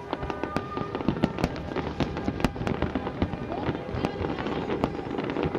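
Fireworks bursting in quick succession: many sharp bangs and crackles, closely overlapping.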